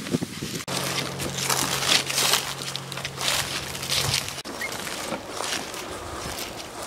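Footsteps crunching through dry fallen leaves at a walking pace, with a faint steady low hum during part of it.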